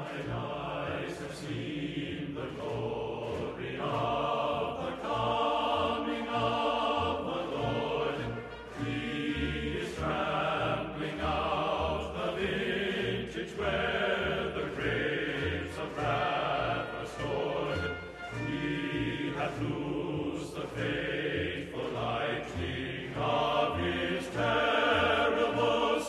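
Classical music with a choir singing over a regular low bass line.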